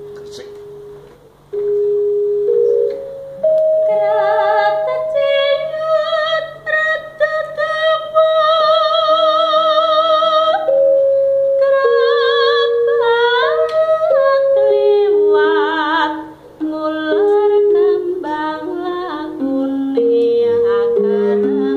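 A gender, a bronze-keyed gamelan metallophone struck with padded disc mallets, plays a slow line of ringing notes alone; about three and a half seconds in, a female sinden joins, singing a jineman with a wavering vibrato over the gender's notes.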